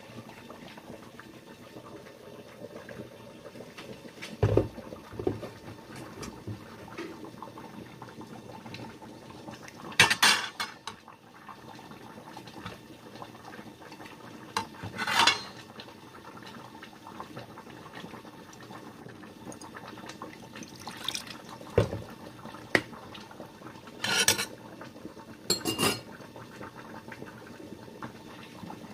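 A metal ladle knocking and scraping against a stainless pot and bowl, about seven separate clinks spread out over the stretch, over a pot of rice porridge simmering with a steady low bubbling.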